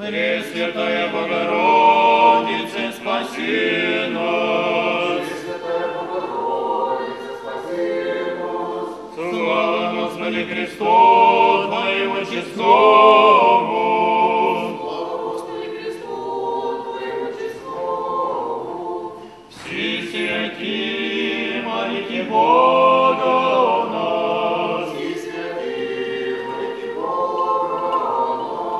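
A group of voices singing Orthodox church chant unaccompanied, phrase by phrase with brief breaks between phrases.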